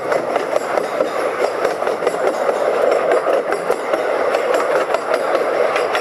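Small narrow-gauge tramway train running along the line, heard from inside an open-sided coach: a steady running noise of wheels and coach with faint ticks through it.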